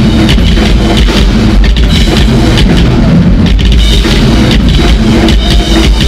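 Loud live drum-kit solo: dense, rapid drumming over a constant low rumble of bass drum.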